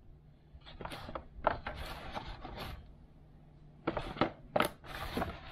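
Unboxing handling noise: the antennas and other parts being lifted out of a white moulded packaging tray, an irregular run of rustles and scrapes. A couple of sharper clicks come about four seconds in.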